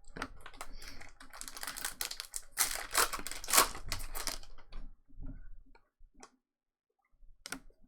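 Stiff chrome trading cards being handled and flicked through by hand: a quick run of clicks and rustling that thins out after about four seconds to a few separate clicks.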